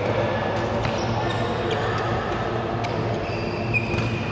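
Badminton rally on an indoor court: several sharp racket hits on the shuttlecock and short high squeaks of shoes on the court floor, over a steady low hum of the hall.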